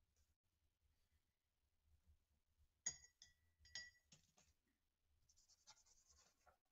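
Near silence broken by two light clinks about a second apart, each with a short high ring, then a faint rustle near the end.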